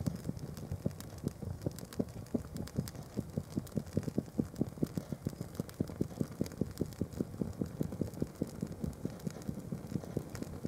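Open flames burning a canvas plimsoll and paper on a fireplace grate: a low fluttering rumble with a quick run of soft crackles and pops, busiest in the middle.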